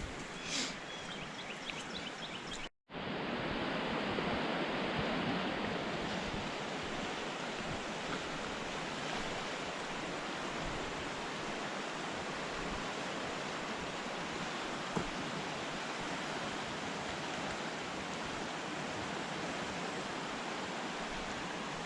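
Rain-swollen creek water rushing steadily. The sound cuts out for a moment about three seconds in, then carries on a little louder.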